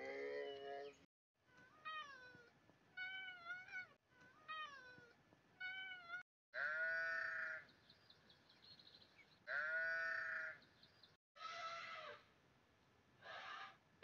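Cats meowing in a series of separate calls: short, high, bending mews, then two longer, louder meows that fall in pitch, and more meows near the end. A lower-pitched animal call at the start cuts off after about a second.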